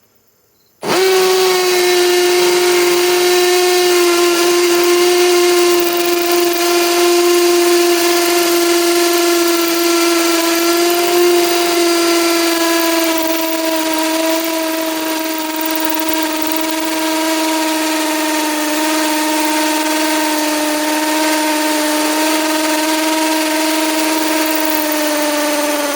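Metabo HPT cordless hammer drill running continuously under load while drilling a hole: a loud, steady, high whine that starts abruptly about a second in, sags slowly in pitch as it bears down, and winds down at the very end.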